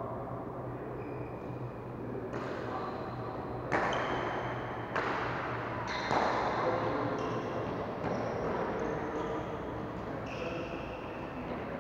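Badminton racket strikes echoing through a large indoor sports hall: a handful of sharp hits a second or so apart, each ringing on in the hall, with short high squeaks from shoes on the court floor.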